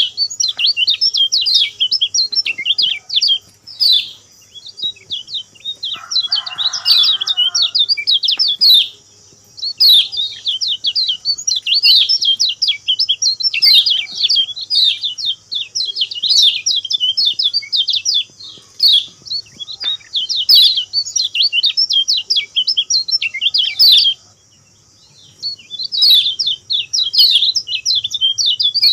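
Kecial kuning, a small white-eye, singing long phrases of rapid, high twittering chirps, with two short breaks in the song. A brief lower rustle sounds about six seconds in.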